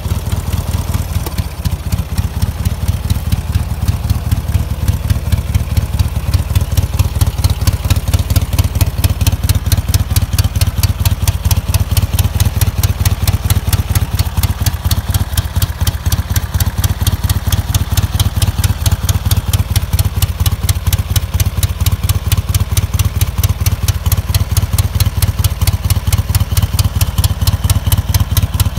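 1969 Ural motorcycle's air-cooled flat-twin engine idling steadily with an even, rhythmic exhaust beat.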